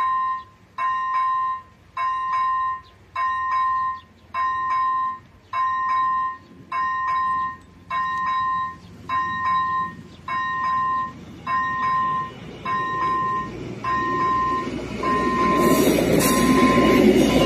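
Level-crossing warning bell (ZV-01 electronic bell of an AŽD 71 crossing) ringing a repeated tone about once a second, the signal that a train is approaching. Over the last few seconds the rumble of an approaching diesel railcar rises and becomes the loudest sound.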